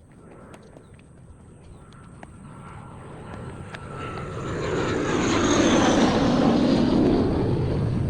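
An aircraft flying over, its engine noise swelling steadily to a peak about six seconds in and then starting to ease, with a high whine that drops slightly in pitch as it passes.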